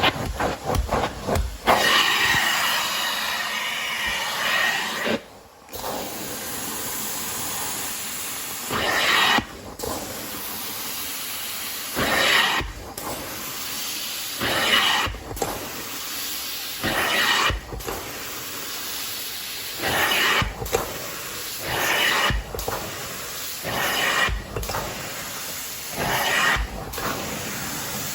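Carpet-cleaning wand doing hot-water extraction: a steady hiss of suction and spray, swelling with each stroke about every two and a half seconds, with a brief cut-off between strokes.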